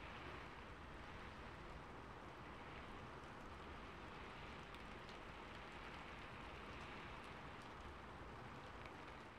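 Faint, steady rain.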